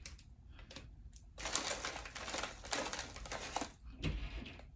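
Crinkling and rustling of a plastic snack bag being handled, lasting about two seconds, followed by a soft thump.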